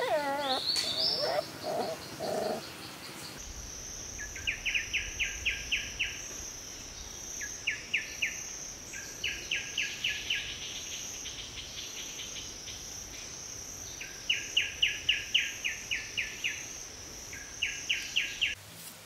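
Woodland ambience: insects keep up a steady high buzz while a bird gives repeated runs of about eight to ten quick, sharp chirps. The first few seconds hold a few short wavering, gliding whistles before the buzz comes in.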